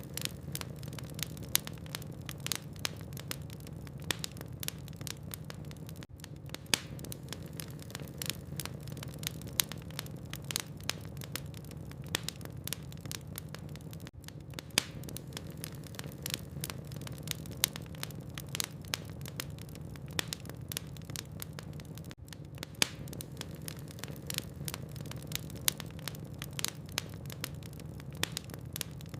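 Wood logs burning in a fireplace, crackling with frequent sharp pops over a steady low hum.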